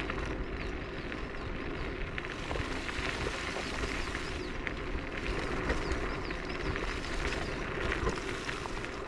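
Electric scooter rolling along a rough forest track: a steady crackle and crunch of tyres over the dirt and gravel, over a low rumble.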